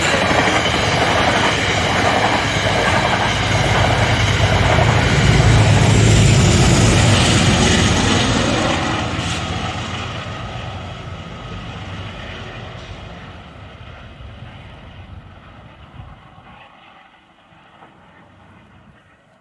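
Metro-North passenger train passing close: coaches rolling and clattering over the rails, then the GE P32AC-DM diesel locomotive at the rear goes by with a low engine rumble about five seconds in. The train then recedes, and the sound fades steadily away over the last ten seconds.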